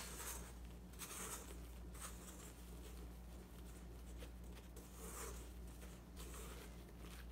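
Spatula scraping and folding macaron batter in a mixing bowl (macaronage), soft swishing strokes about once a second.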